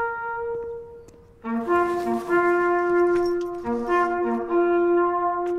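A slow bugle call played on a brass instrument, in long held notes on a few open bugle tones. It breaks off briefly about a second in, then goes on.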